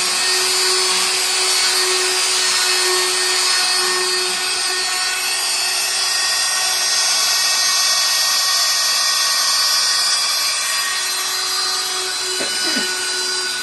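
Electric power sander running steadily at full speed on the wooden table top: a constant motor whine over a wide sanding hiss.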